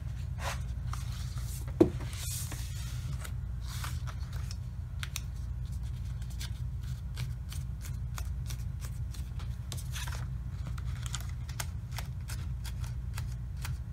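Paper planner pages being pressed back onto the disc rings of a disc-bound planner: paper rustling with many small clicks, and one sharp knock about two seconds in. A steady low hum runs underneath.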